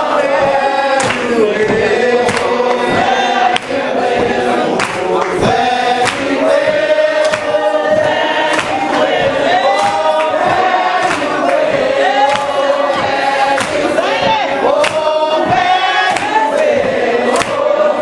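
Congregation singing a hymn together in the unaccompanied Primitive Baptist style, many voices holding long notes and sliding between them without a break.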